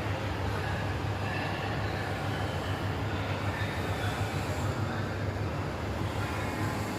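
Water-cooler axial fan running steadily, with a low hum and an even whooshing haze over it, as the newly installed fan is run.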